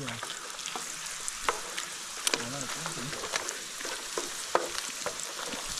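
Tortillas frying in hot fat in a pan, sizzling steadily with many small crackles and pops.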